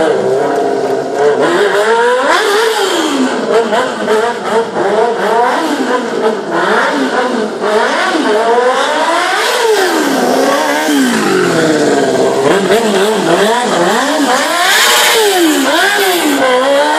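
Sport motorcycle engine revved hard and let fall over and over during stunt riding, its pitch swooping up and down every second or two.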